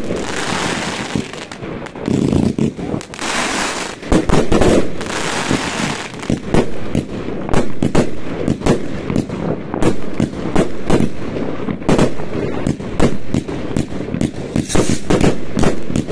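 New Year's fireworks going off: hissing, crackling stretches for the first few seconds, then a rapid string of sharp bangs, several a second, like a firecracker or battery barrage.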